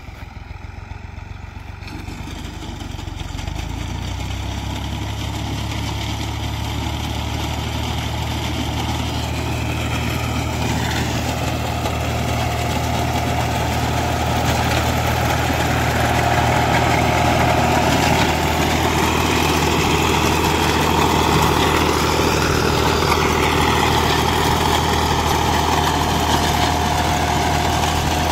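Tractor engine running steadily while it drives a front-mounted reaper binder through standing wheat, growing louder as it approaches over the first half. A steady whine joins in about halfway through.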